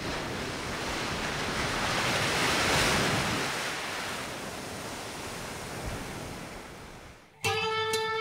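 A whooshing rush of noise swells for about three seconds and then slowly fades. About seven and a half seconds in, plucked guitar music starts suddenly.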